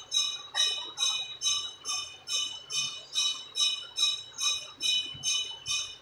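An animal chirping over and over: about fifteen short, high, shrill chirps at a steady pace of about two and a half a second, stopping near the end.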